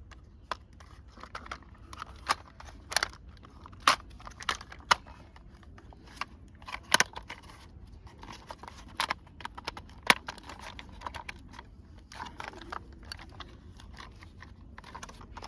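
Plastic toy parts clicking and knocking as the lower body of a toy auto-rickshaw is pressed and fitted onto its upper body. The sharp clicks come irregularly, a few louder knocks among them.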